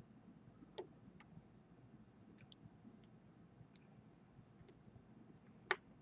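Faint, scattered light clicks and taps as a phone and its small parts are handled on a work mat, with one sharper click near the end.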